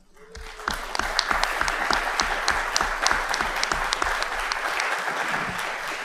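Audience applauding, building up over the first second into steady clapping, with one nearby pair of hands clapping about four times a second above the rest.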